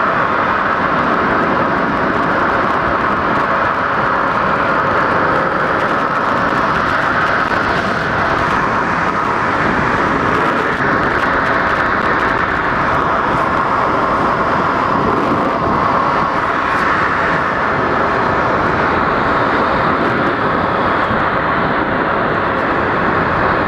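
Snow tube sliding fast down a groomed tubing lane: a steady, loud rush of the tube scraping over packed snow mixed with wind on the microphone.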